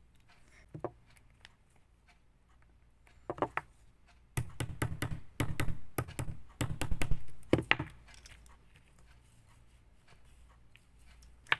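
Small hammer tapping a pin out of a metal watch bracelet link to remove links: a few single taps, then a quick run of taps lasting about three seconds, and one more tap after it.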